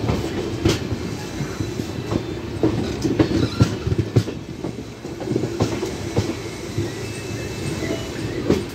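Kerala Superfast Express coaches rolling on the track: a steady low running noise with irregular sharp wheel clacks over rail joints.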